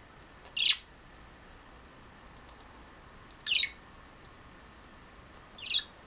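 Pet budgerigar giving three short calls, two to three seconds apart.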